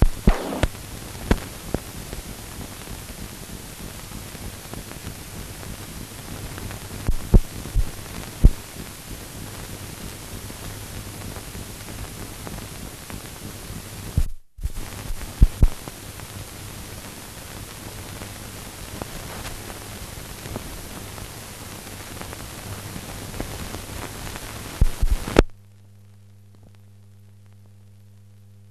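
Steady hiss and low mains hum from an old newsreel film soundtrack, with scattered clicks and pops. The sound cuts out for a moment about halfway, and near the end the hiss stops, leaving only a fainter hum.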